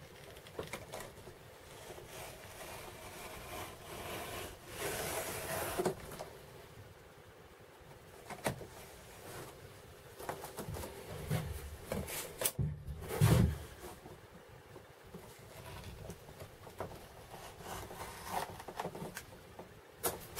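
A knife blade drawn through thick vegetable-tanned leather along a metal ruler: faint scraping and rubbing, with the ruler and hide shifted on the cutting mat and a few soft knocks, the loudest about two-thirds of the way through.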